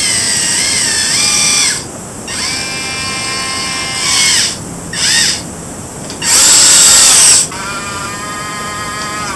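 Small electric motors of a 1/32-scale RC wheel dozer whining in several separate runs, starting and stopping, their pitch stepping and gliding up and down. The loudest run comes about six to seven and a half seconds in.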